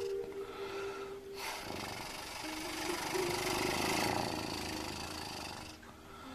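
Cat purring close to the microphone, a fast, even rumble, with rustling from the cat's fur rubbing against a face from about a second and a half in until near the end.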